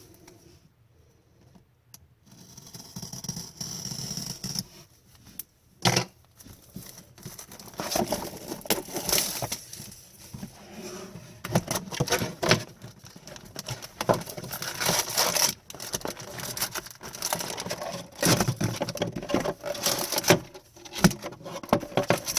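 A hockey card hobby box and its packs being handled and opened: irregular rustling, crinkling and tearing of wrappers and cardboard, mixed with taps and scrapes. The first two seconds are nearly quiet before the handling starts.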